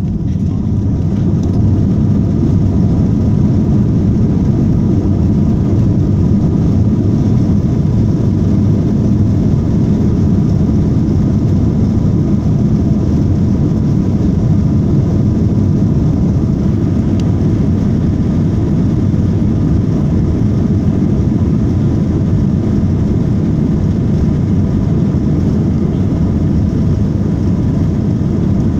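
Airbus A321 jet engines at takeoff thrust heard from inside the cabin during the takeoff roll: a loud, steady low rumble that builds over the first couple of seconds and then holds, with a faint steady whine above it.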